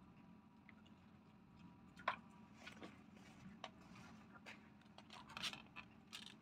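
Faint scattered scraping and rustling of puppies moving about on a canvas dog cot and at a cardboard box, with a sharper tick about two seconds in and a short cluster of ticks near the end.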